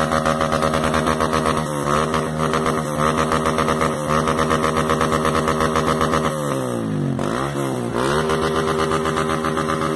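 Honda CG Titan single-cylinder motorcycle engine running through an aftermarket muffler, idling with short throttle blips about two, three and four seconds in. Later the revs drop and pick up again twice.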